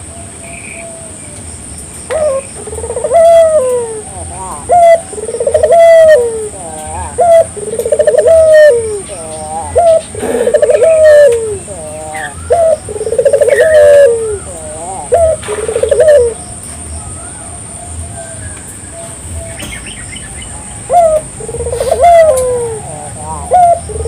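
Puter (collared dove) cooing: a run of repeated coos, each rising then falling in pitch, pausing for about five seconds past the middle before starting again near the end.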